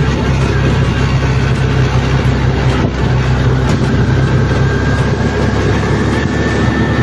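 Auto-rickshaw (keke) engine running steadily as it drives along, with a constant low hum.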